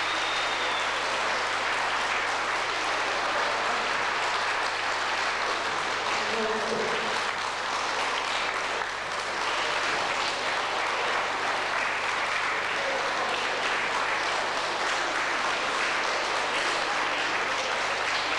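Audience applauding steadily and without a break.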